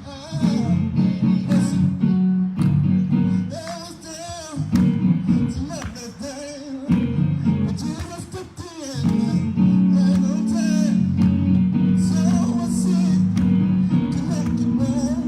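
Music with a singing voice over instrumental accompaniment, the low notes strongest; the accompaniment thins out briefly a few times in the first half.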